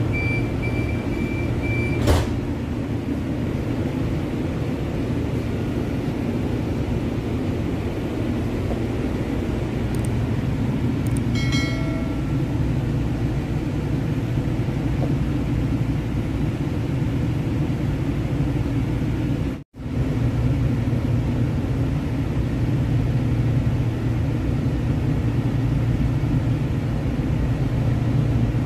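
Steady low rumble of a CTrain light rail car running on its tracks, heard from inside the passenger car. A thin high tone stops about a second in, a sharp click follows a second later, a short ringing cluster of tones comes around the middle, and the sound cuts out for an instant about two-thirds of the way through.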